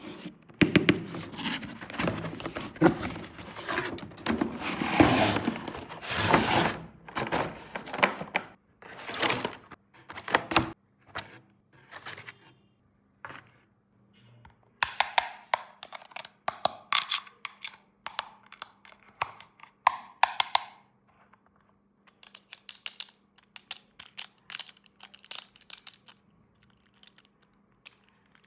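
Hands handling small plastic toys and packaging: a dense run of clicks, taps and rustling for about ten seconds, then scattered taps and knocks, with a faint steady hum underneath.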